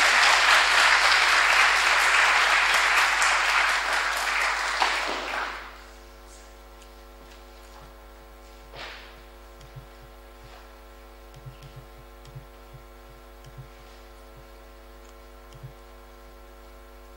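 Audience applauding, dying away about five and a half seconds in. After it, a low steady hum remains, with a few faint knocks and taps.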